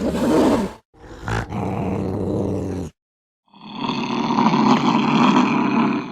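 Angry domestic cat crying out in three drawn-out, wavering cries, each cut off abruptly into silence; the last is the longest, about three seconds.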